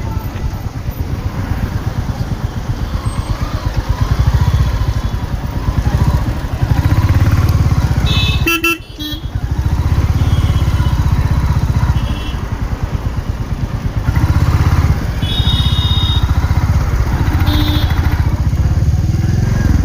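Stock exhaust of a 2023 Royal Enfield Classic 350's single-cylinder engine, running with a low steady beat under a rising and easing throttle, dropping off briefly about nine seconds in. Several short vehicle horn toots sound over it in the second half.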